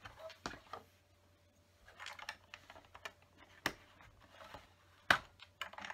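Plastic LEGO bricks clicking and tapping as they are pressed into place and handled. There are scattered sharp clicks and a little rustling, and the loudest click comes about five seconds in.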